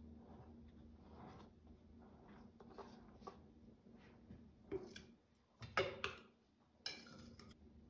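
Faint handling sounds of cake-decorating work: soft rustles and light clicks, with a louder rustle about six seconds in and a short scraping rustle a second later, over a steady low hum.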